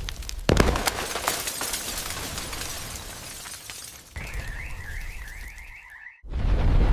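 A sound-designed tornado scene. A sharp thunderclap comes about half a second in, followed by crackling, rushing noise. About four seconds in, a high warbling electronic alarm sounds for two seconds and cuts off suddenly. Near the end a deep rumbling of storm wind comes in.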